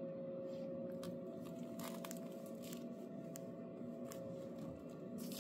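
Faint steady hum, with soft rustling and scattered light clicks as a hand strokes a cat's fur.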